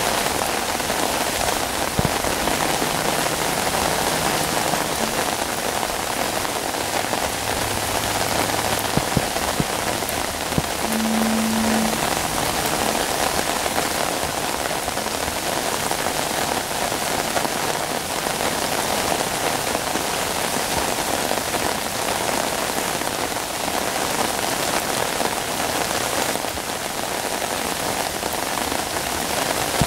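Heavy rain falling onto floodwater, a steady, even rush of drops hitting the water's surface.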